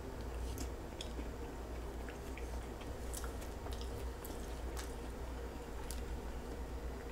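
A person chewing a mouthful of pan-fried sweet potato, with soft, scattered clicks from the mouth.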